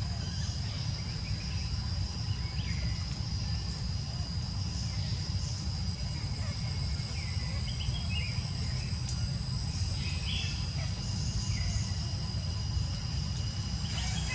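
Forest ambience: a steady high-pitched insect drone, with short chirps every second or two over a steady low rumble.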